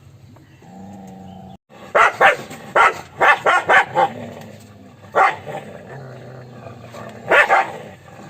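A dog growling low and steadily, then, after a brief break, a string of sharp barks: a quick cluster of about six, then single barks and a double bark near the end.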